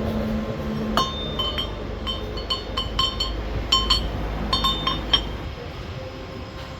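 Light metal-on-metal clinks, about fifteen irregular ringing taps between about one and five seconds in, over a steady low rumble.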